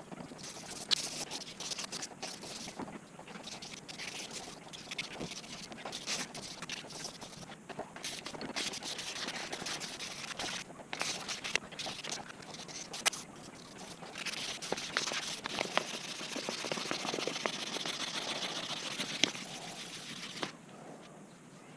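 Sandpaper rubbed back and forth by hand along a steel knife blade clamped in a vise, a scratchy rasp in uneven strokes, with scattered clicks and knocks from handling.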